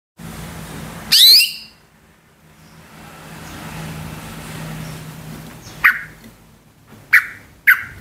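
Female green leafbird (cucak hijau) calling. One loud call of quick sweeping notes comes about a second in, then three short, sharp calls near the end, the last two close together. A low steady hum runs underneath.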